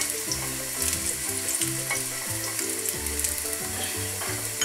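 Chopped garlic sizzling steadily in hot olive oil in a frying pan, being gently fried until golden, with a spatula stirring and scraping through it.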